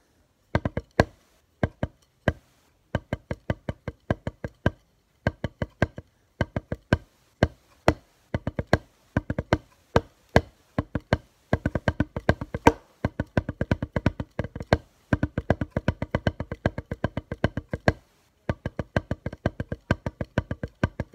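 One drumstick played with the push-pull technique in fast triplet strokes on a flat surface. The strokes come in quick runs of sharp taps, each with a short ringing note, with brief pauses between runs.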